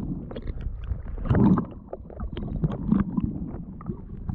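Muffled underwater sound from a submerged camera: water sloshing and gurgling, with scattered small knocks and clicks. A louder low surge comes about a second and a half in, and a smaller one near three seconds.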